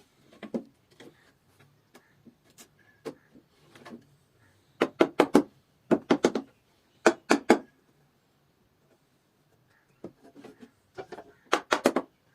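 Hammering on wood: quick runs of three or four sharp blows with pauses between, and a few lighter single taps.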